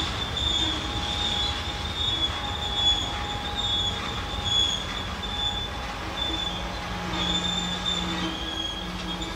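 Freight cars of a loaded garbage train rolling past, their steel wheels squealing on the rails: a continuous high squeal with fainter squeal tones that come and go, over a steady low rumble of wheels on track.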